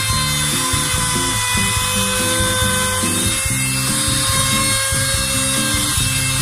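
Compact trim router running with a steady high whine as its bearing-guided bit cuts along the edge of a hardwood chopping board. Background music with a stepping bass line plays along with it.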